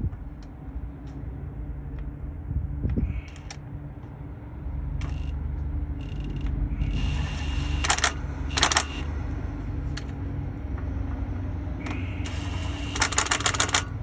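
Milwaukee 1/2-inch cordless impact wrench on its low speed, hammering in short bursts to snug the driveshaft yoke bolts, with two longer runs of rapid rattling impacts near the middle and near the end. A steady low hum runs underneath.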